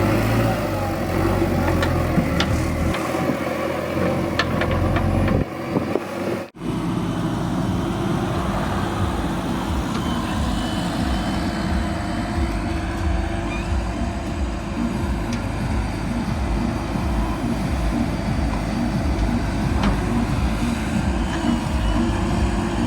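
Diesel engine of a heavy machine running steadily, with a sudden brief break about six and a half seconds in.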